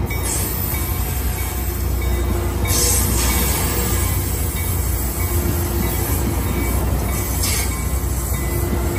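ACE bilevel passenger cars rolling past on the rails: a steady low rumble of wheels on track with faint wheel squeal. Two short bursts of hiss come about three seconds and seven and a half seconds in.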